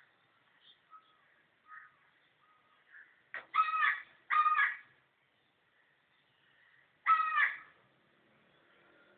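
A crow cawing: two harsh caws in quick succession a few seconds in, then a third about three seconds later.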